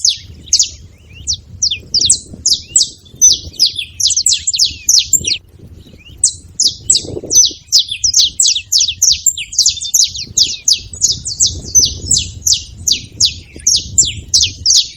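Saffron finches calling together in a fast, dense run of short, high, downward-slurred chirps, with a brief lull about five and a half seconds in.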